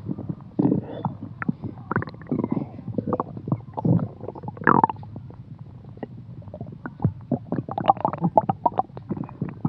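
A bloated human stomach gurgling: irregular bubbling rumbles, pops and squeaks, thicker toward the end. The bloating is blamed on milk that was not fresh enough.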